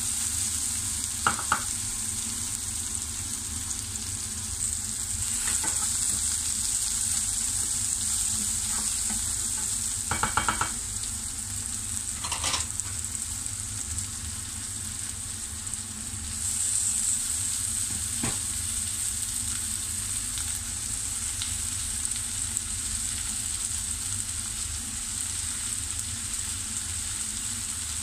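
Sliced red onions and chopped garlic sizzling in hot oil in a pot, with a steady hiss throughout. A spatula stirs them, and there are a few short clicks of it against the pan, the loudest about a second in and a quick run of them about ten seconds in.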